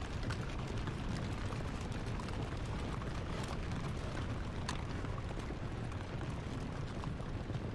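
Steady rushing noise, strongest in the low end, with a few faint ticks.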